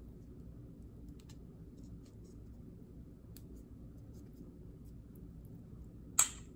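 Faint rustling and light ticking of a pandan leaf being folded by hand around a chunk of chicken, over a low steady hum. One short sharp crack near the end is the loudest sound.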